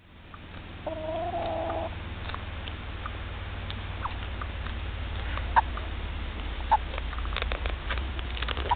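Young hens calling: one drawn-out, steady-pitched call about a second long near the start, then a few short clucks spread through. A steady low rumble sits underneath, and a quick cluster of taps comes near the end.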